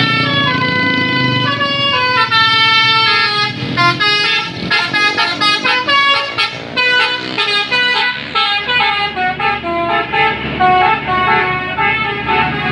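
Basuri multi-tone bus horn ('telolet') playing a tune: runs of stepped falling notes over the first few seconds, then quicker short notes.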